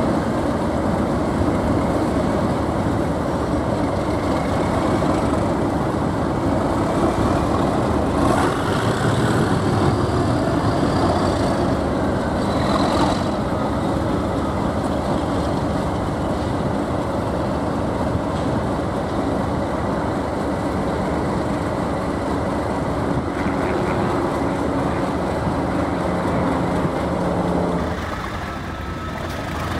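Class 37 diesel locomotives' English Electric V12 engines running steadily as one locomotive moves off at low speed, with brief high squeals about eight and thirteen seconds in.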